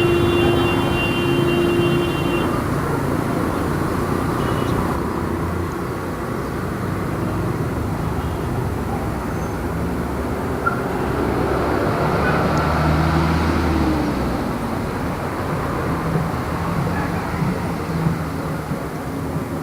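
Light city street traffic: a steady wash of vehicles passing, with engine and tyre noise. A high squeal sounds briefly at the start, and a low engine hum swells partway through.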